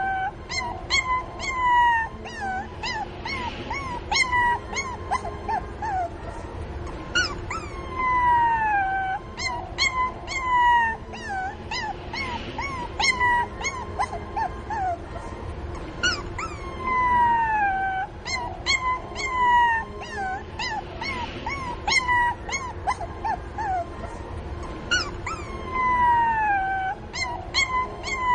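A puppy crying for its mother: long whines that fall in pitch, mixed with short high yelps. The same run of cries repeats about every eight seconds.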